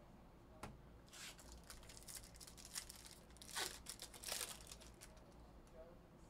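Foil trading-card pack wrapper torn open and crinkled in a string of short, faint rips and rustles, loudest about three and a half to four and a half seconds in. There is a single sharp tick just before the tearing starts.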